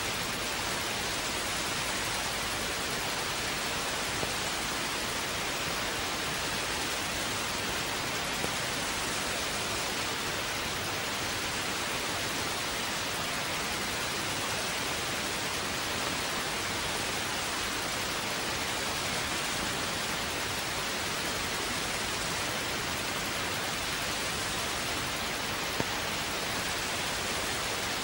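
Steady, even hiss of a television sound channel carrying no programme audio after the broadcast's close-down, with no test tone. A few tiny clicks stand out.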